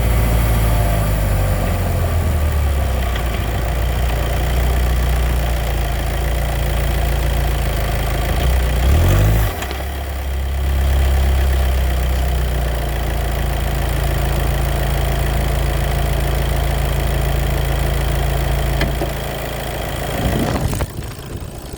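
Car engine idling steadily through a VW DQ250 six-speed wet dual-clutch (DSG) gearbox, recorded to show a clutch noise. The engine's hum wavers briefly about nine seconds in and drops away near the end.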